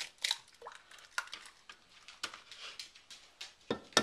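Eggs being cracked against a glass measuring cup and opened into it: a string of short, sharp taps and clicks, the loudest near the end.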